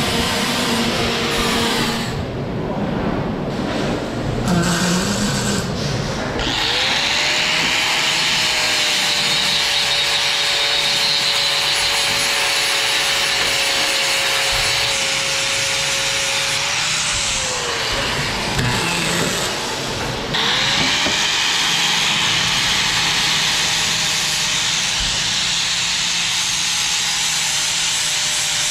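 Angle grinder with a flap disc grinding steel plate, with a shower of sparks. Its motor whine rises about six seconds in and holds steady, falls away around seventeen seconds, then rises again about twenty seconds in and keeps grinding.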